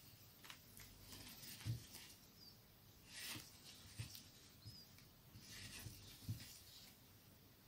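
Faint rustling and scratching of yarn being worked with a crochet hook, stitch by stitch, with a few soft low thumps from handling the doll.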